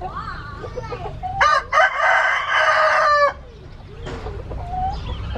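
A gamefowl rooster crowing once, a long crow of about two seconds starting about a second and a half in, with quieter short calls before and after it.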